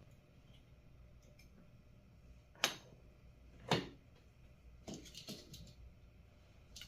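Wire cutters snipping off component leads on a circuit board: two sharp snips about a second apart, then a few lighter clicks.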